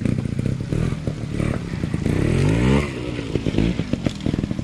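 Trials motorcycle engine pulsing at low revs, with one rev that rises for about a second and drops back about two to three seconds in, as the bike works over rocks.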